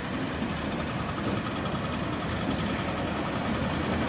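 Steady low rumble of idling vehicle engines in street noise.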